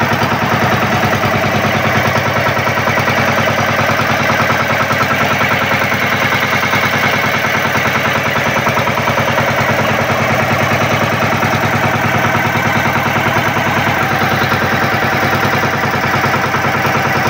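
Outrigger bangka boat's engine running steadily under way, with a rapid, even putt-putt of exhaust pulses.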